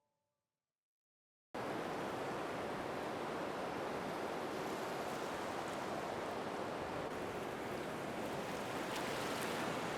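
Ocean surf ambience, a steady rushing wash of waves, cutting in suddenly about a second and a half in after silence.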